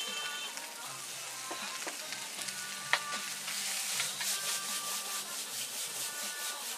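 Fried rice sizzling in a hot wok as a metal ladle stirs, scrapes and knocks against it, with one sharp clack about three seconds in and quicker rhythmic scraping strokes in the second half.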